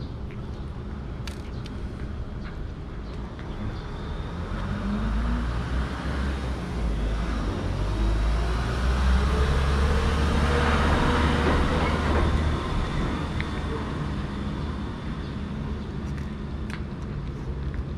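A motor vehicle passing on a nearby road: a low rumble that builds for several seconds, is loudest a little past halfway, then fades away.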